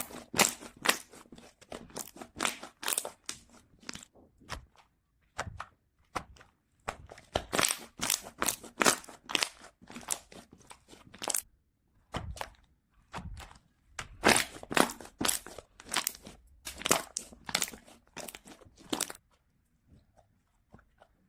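Slime being squeezed and pressed by hand, making runs of sharp clicks and pops separated by short pauses.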